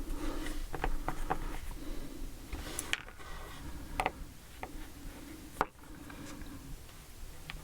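Small sharp clicks and taps of lock pins and parts being handled while a lock core is pinned, about five distinct clicks, the clearest around three, four and five and a half seconds in.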